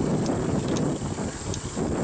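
Wind buffeting the microphone of a camera riding along on a bicycle hill climb: a steady low rumble, with a few faint light ticks.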